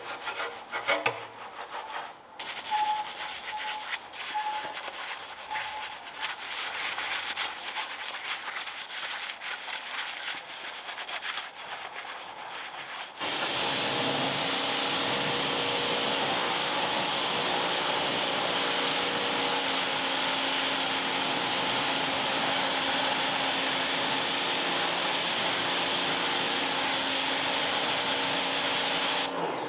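Rapid back-and-forth scrubbing of a stiff brush on car upholstery or carpet. About 13 seconds in, a vacuum cleaner switches on abruptly and runs with a steady, louder rushing hum.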